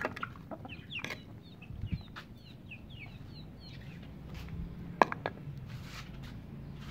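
Chickens calling, with many short, high, falling chirps repeating throughout, and a few sharp knocks, the loudest about five seconds in.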